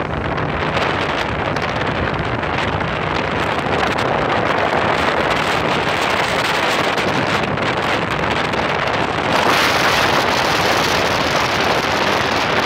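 Wind buffeting the microphone on a small motorboat under way, over the steady noise of the boat running through the water. The wind noise grows louder about nine seconds in.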